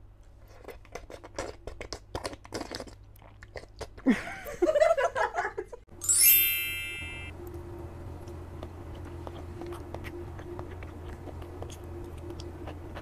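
Close-miked eating sounds: crisp crunching and chewing, then louder slurping mouth noises. About halfway through, a bright sparkling chime rings out as a transition sound effect and fades within about a second. After it, quieter chewing continues over a steady low hum.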